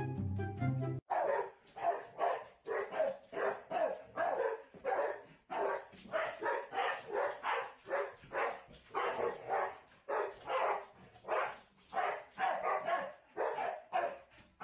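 Dogs barking over and over, about two barks a second, starting about a second in.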